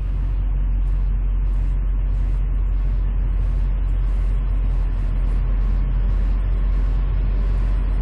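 Steady running of the truck's Duramax diesel V8 at idle together with the climate-control blower fan, heard from inside the cab.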